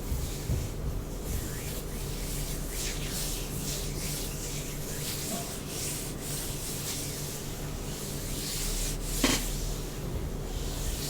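Brush strokes through hair: a run of soft, repeated brushing hisses, with one sharp click about nine seconds in.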